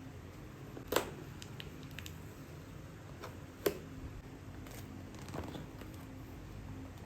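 Scattered clicks and knocks from handling a mechanical keyboard, with a sharp knock about a second in, a louder one midway, and a few faint ticks between.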